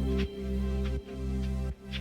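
Background music: held low notes with a soft melody above, the chord changing about every three-quarters of a second.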